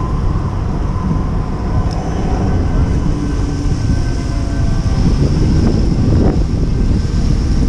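City street noise heard from a moving bicycle: a steady, loud low rumble of traffic and wind, with no single event standing out.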